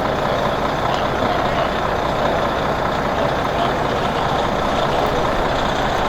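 Steady, loud running of fire truck diesel engines and pumps.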